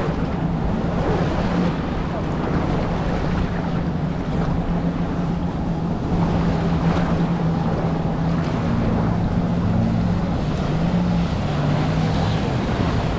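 Jet ski engine running with a steady hum. The pitch shifts and wavers from about nine seconds in as the craft closes in and turns. Water laps and wind rumbles on the microphone underneath.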